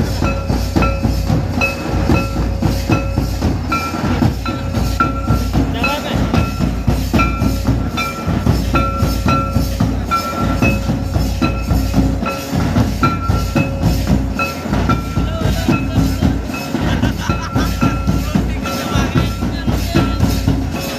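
Santali traditional drumming for an enej dance: the big tamak' kettle drum and tumdak' barrel drums playing a fast, steady rhythm, with short repeated high notes over it.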